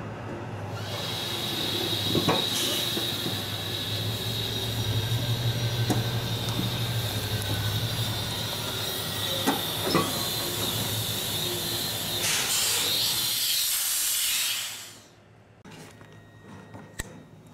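Loaded semi truck running with a low engine hum and a high steady hiss as its tyre rolls over a phone on a wooden board, with a few sharp clicks along the way. The sound drops away suddenly near the end.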